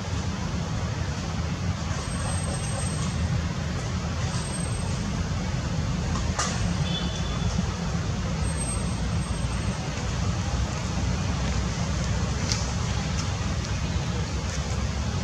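Steady background noise: a low rumble with an even hiss, and a couple of faint clicks.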